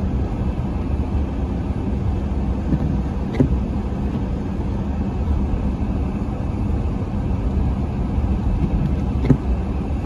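Steady low rumble of road and wind noise from a car driving along a snow-covered highway in a blizzard, with two brief knocks, one about three seconds in and one near the end.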